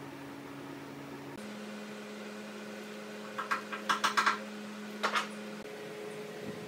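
A quick run of short taps and knocks, about half a dozen in under a second, then two more about a second later, over a steady low hum.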